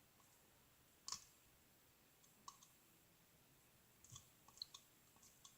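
Near silence broken by a few faint clicks: one about a second in, another a second and a half later, and a small cluster near the end. They come from a plastic straw stirring a slime mixture in a plastic cup.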